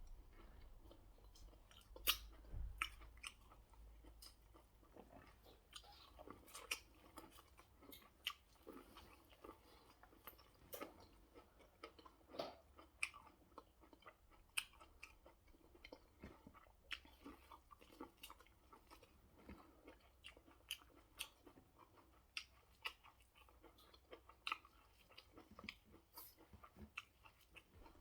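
A person chewing corn and African pear close to the microphone: quiet chewing with many small, irregular mouth clicks and smacks.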